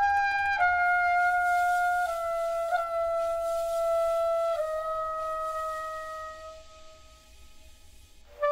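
Music played through Polk L800 floor-standing loudspeakers: a solo wind instrument holds a slow line of long notes, each a little lower than the last, fading out near the end before a new note comes in.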